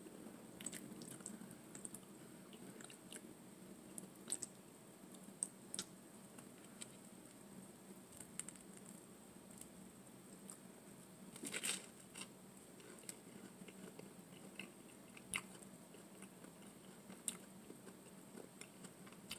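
Close-miked eating sounds of a person chewing spaghetti with meat sauce and garlic bread: soft, scattered mouth clicks and smacks, a small cluster about halfway through, over a faint steady low hum.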